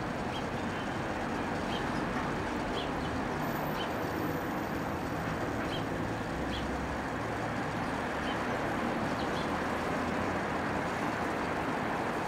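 Steady background rumble of road traffic, with a few faint, short, high chirps scattered through it.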